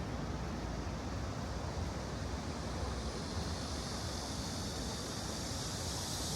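Steady rushing of shallow stream water, with a low rumble underneath.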